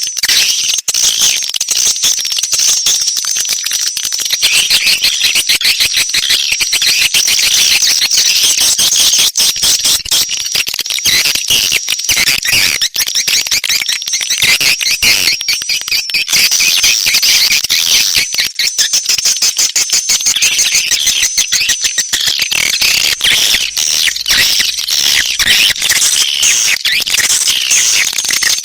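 Swiftlet lure-call recording: dense, rapid chittering and twittering of edible-nest swiftlets, with a thin, steady, high-pitched tone running under much of it. Such tracks are played to draw swiftlets into a nesting house.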